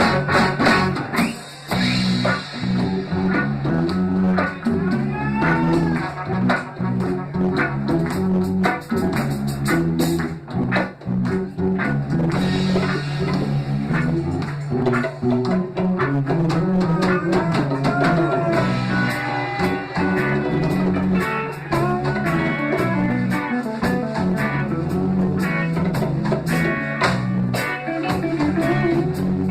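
Instrumental break of a reggae song: a guitar melody with bending notes over a bass line and drum kit, with no singing.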